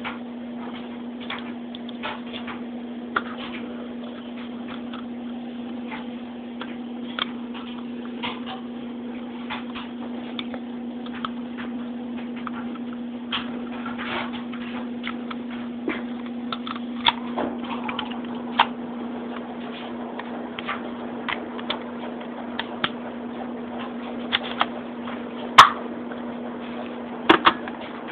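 Scattered clicks and taps of BB gun parts being handled and fitted together, irregular throughout, with one sharp click near the end, over a steady low hum.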